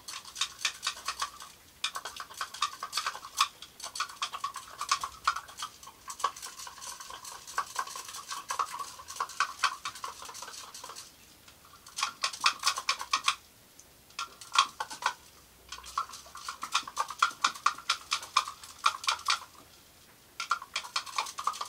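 A thermometer stirring in a beaker, clinking rapidly and rhythmically against its sides in runs with short pauses, as sodium hydroxide is dissolved in distilled water.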